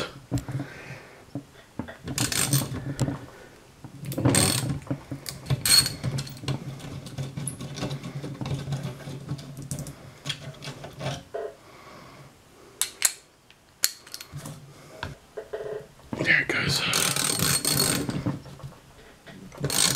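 Socket ratchet clicking in several bursts as bolts are backed out of a car's condenser fan mounting bracket, with the clink of steel tools between the bursts. The longest run of ratcheting comes near the end.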